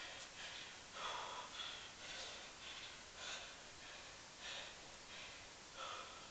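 A man breathing hard and fast from exertion, about ten short, noisy breaths in a row at roughly one every half second to second.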